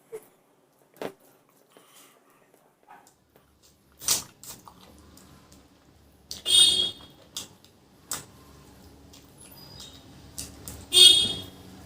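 Close-miked eating sounds: small clicks of chewing and lip smacks, then three louder, longer mouth noises about four, six and a half and eleven seconds in.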